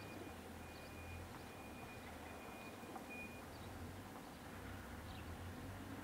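Faint outdoor background: a steady low hum, with a thin high steady tone that sounds on and off through the first half and stops a little after the halfway point.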